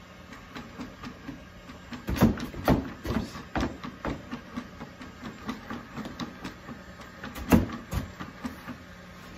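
Unitree Go2 Pro quadruped robot dog stepping on carpet under remote control: a steady patter of footfalls, about three a second. Several louder thumps come about two seconds in and again near the end.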